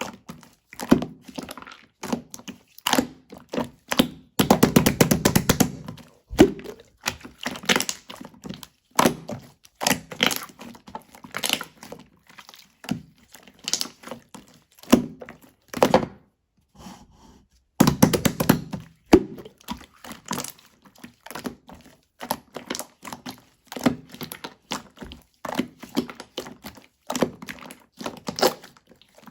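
Jiggly slime being squeezed, poked and folded by hand, making irregular sticky clicks and small air-bubble pops. Two stretches of rapid crackling come about four seconds in and again about two-thirds of the way through.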